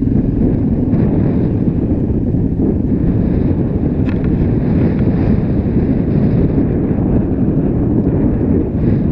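Heavy wind buffeting on the camera microphone while a dirt bike is ridden over rough ground, with the bike's engine running underneath.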